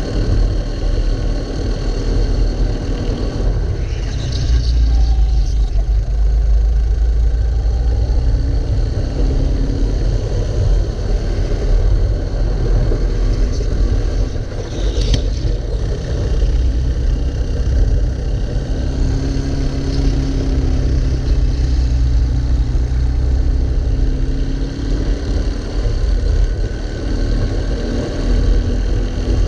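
Racing kart's engine running hard, heard from on board the kart, its pitch rising and falling as it accelerates out of corners and backs off into them, over a heavy low rumble.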